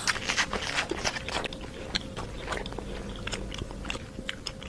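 Giraffe chewing food: a run of irregular crunching clicks, with a faint steady hum underneath.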